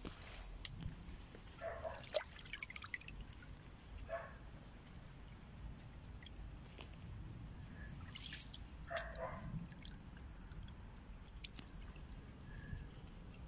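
Shallow water trickling and dripping over stones, with a few short squeaky sounds about two seconds in, at four seconds and near nine seconds.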